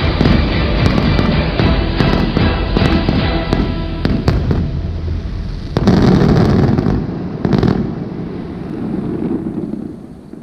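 Aerial fireworks bursting with dense crackling, sharp pops and low booms. The barrage thins after about four seconds, two more bursts go off near six and seven and a half seconds, and the sound then dies away.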